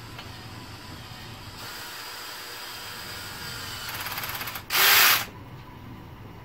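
Socket ratchet clicking in a quick run as the fuel-line clamp bolt is tightened, followed straight after by a short, loud burst of noise about five seconds in.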